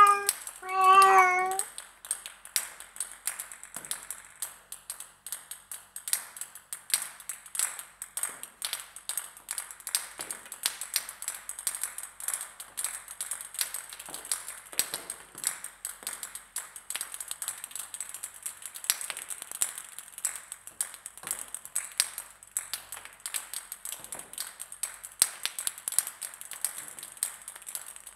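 A cat meows about a second in. Then table tennis balls bounce on a hard floor, giving a long irregular patter of quick light ticks.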